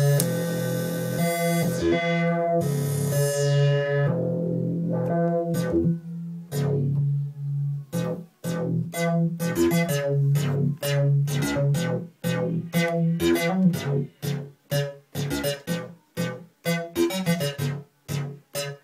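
Minimoog Model D analog monosynth played on its keyboard. It opens with held notes whose bright tone fades duller over the first few seconds, then plays a long run of short staccato notes that come faster and closer together near the end.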